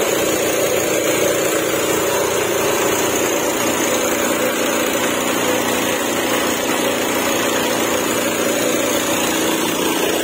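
Workshop air compressor running steadily, a continuous even motor noise with hiss, supplying air for spray painting.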